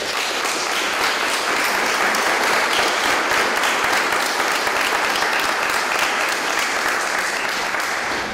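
A standing crowd of a few dozen people applauding, dying away at the very end.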